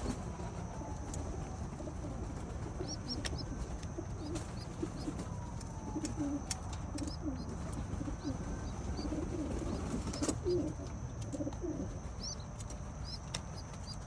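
Pigeons cooing: repeated low coos, thickest through the middle, with short high chirps now and then and a faint steady high tone behind them.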